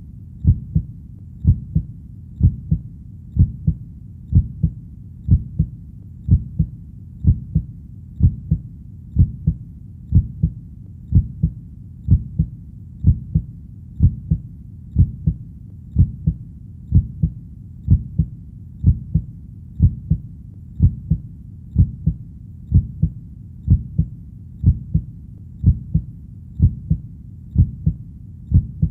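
Heartbeat sound: low, soft lub-dub thuds in pairs, repeating at an even, steady pace.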